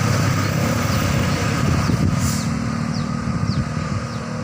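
Tour bus diesel engine rumbling as the bus passes close by, settling into a steady low drone about halfway through.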